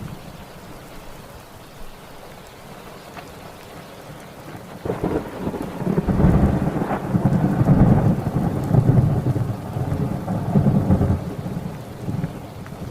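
Steady rain falling, with a long rumble of thunder that starts about five seconds in, is loudest in the middle and fades near the end.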